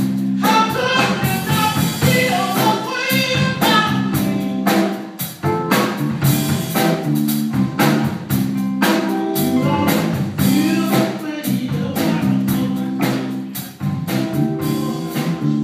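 Live blues band playing a passage, with a drum kit keeping a steady beat under guitar and other sustained instrument lines.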